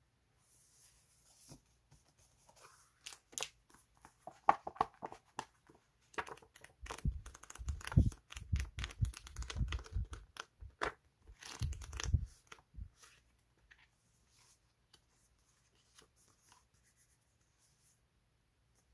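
Paper label-sticker sheets being handled and shuffled, and the pages of a label pad flipped: crisp paper rustling and clicking with soft thumps, busiest in the middle, then dying down to faint handling for the last several seconds.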